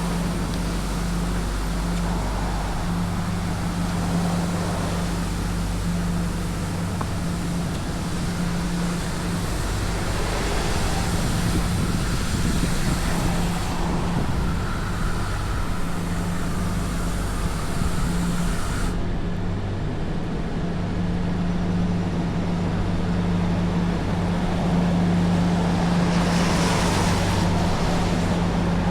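Tymco 435 regenerative-air street sweeper running steadily while sweeping wet pavement: a constant engine hum under a wash of hissing noise. The hiss drops off abruptly about two-thirds of the way through and picks up again near the end.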